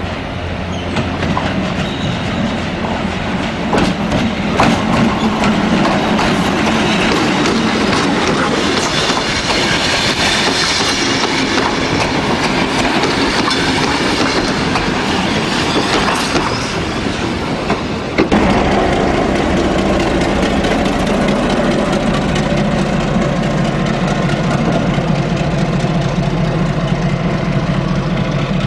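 Wooden passenger carriages rolling past with a clickety-clack of wheels over rail joints. About two-thirds through the sound changes suddenly to the steady low drone of a Victorian Railways Y class diesel shunter's EMD two-stroke engine running close by at idle.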